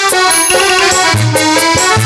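Traditional Indian stage music: a sustained reed-instrument melody over drum beats and sharp cymbal-like ticks.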